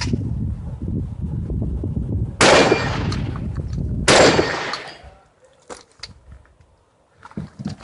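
Two gunshots about a second and a half apart, each followed by a ringing echo, after a low rumble.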